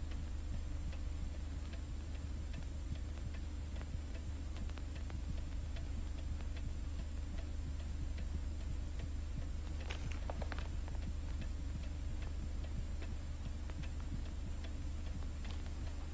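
A clock ticking steadily in a quiet room over the steady low hum of an old film soundtrack. A short rustle of paper comes about ten seconds in.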